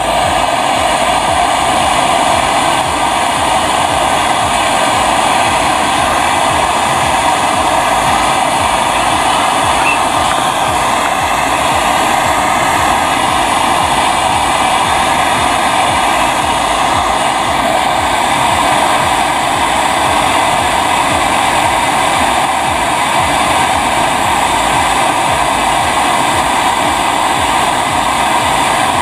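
Portable gas torch flame burning loudly and steadily, heating a copper tube joint on a refrigerator compressor for brazing with silver rod.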